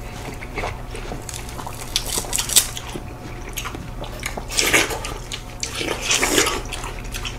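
Wet, juicy eating sounds from bites into slices of seedless watermelon, coming in a few short bursts about two, four and a half, and six seconds in.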